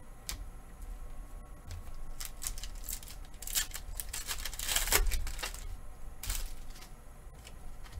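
Foil Pokémon booster pack wrapper crinkling and being torn open, with the loudest rip about five seconds in, among lighter rustles and clicks of handling.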